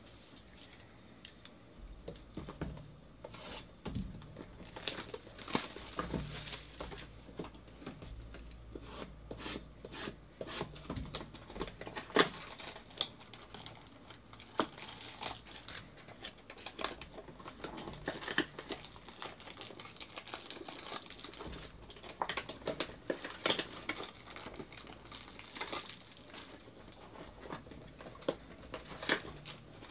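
Plastic shrink wrap being torn and crinkled off a cardboard trading-card box, then the box being opened. It makes irregular rustling with sharp clicks and taps that starts about two seconds in.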